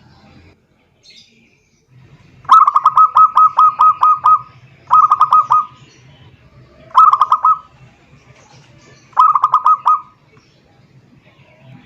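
Zebra dove (perkutut) singing its quick staccato cooing song. A long run of about ten rapid notes is followed by three shorter bursts, each a couple of seconds apart.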